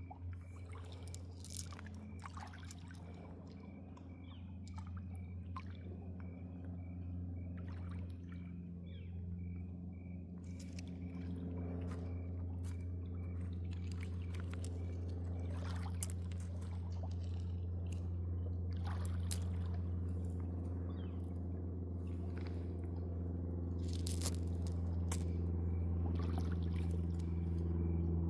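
Water trickling and splashing in irregular drips and small spills over a steady low hum that grows slowly louder.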